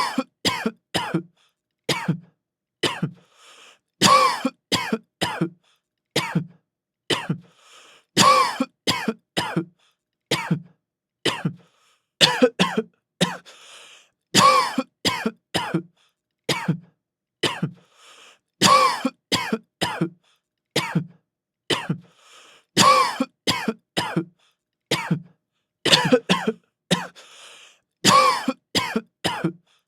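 A man's severe cough: bouts of several coughs in quick succession, broken by short pauses, repeating again and again.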